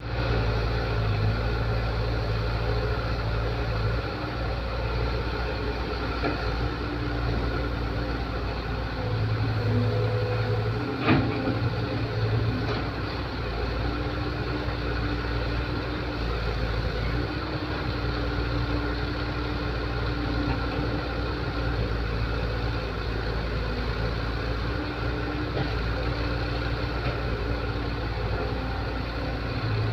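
Excavator's diesel engine running steadily, with a tone in its hum that comes and goes as the machine works. A single sharp knock about eleven seconds in.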